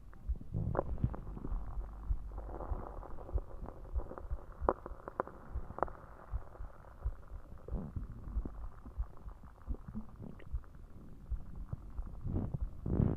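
Human stomach growling and gurgling from soda gas moving through the gut: an uneven low rumble broken by many small pops and bubbling gurgles, with a louder gurgle near the end.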